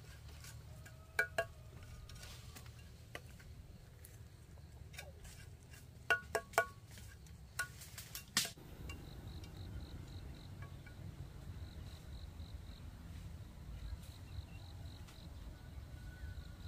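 A few sharp clinks with a short ring, like hard objects knocked together, in small clusters about a second in, around six seconds in and near eight seconds. From about nine seconds on, an insect chirps in short, evenly pulsed trills over a faint low rumble.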